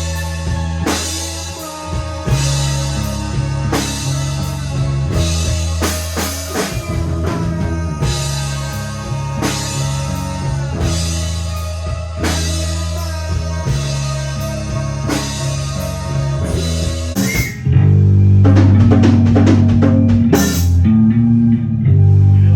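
Rock band playing psychedelic alternative rock: a full drum kit with steady cymbal and drum hits under guitar and bass. About three-quarters of the way through, the cymbals drop away and a loud bass-guitar line comes to the front, with one more crash a few seconds later.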